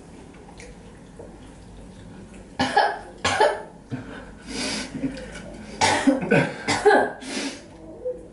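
A person coughing in several harsh bouts, starting about two and a half seconds in: coughing from the burn of very spicy fried chicken.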